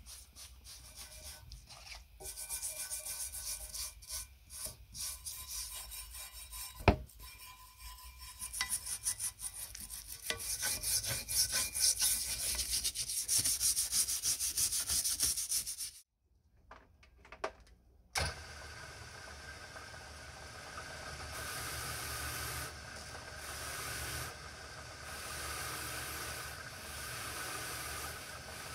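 Stiff plastic brush scrubbing rusty cast-metal clay-pigeon trap parts in a tray of cleaning liquid, in rapid scratchy strokes, with one sharp knock partway through. After a couple of seconds of quiet, a bench polishing wheel runs steadily as a small metal part is held against it.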